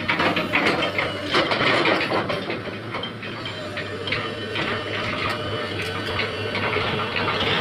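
Excavator at work: a steady engine hum under irregular mechanical clicking and clanking.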